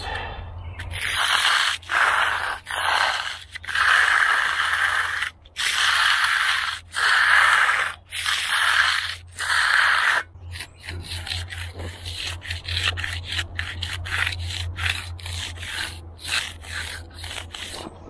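Hand concrete edger scraping back and forth along the edge of a freshly poured slab, rounding the edge off. The first ten seconds hold a run of long, loud strokes of about a second each; after that the strokes turn shorter and quieter, with many small clicks.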